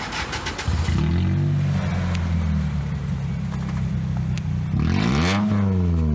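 Toyota Celica four-cylinder with its muffler removed, started up: a brief cranking clatter, then the engine catches and idles loudly. About five seconds in it is revved once, rising and falling back to idle.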